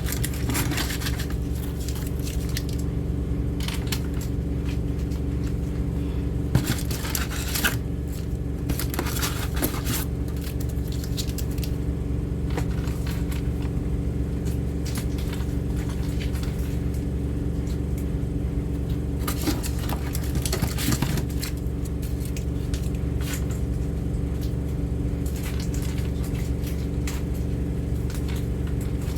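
A washing machine running with a steady low hum, while food cans and packets are handled now and then with scrapes, rustles and light clinks.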